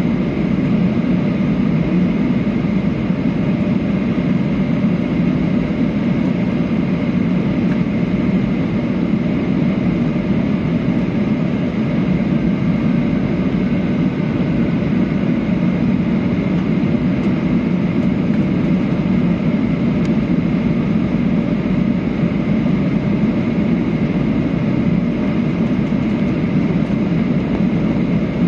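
Steady engine and rushing-air noise inside a jet airliner's cabin on final approach, a low, even drone with no break.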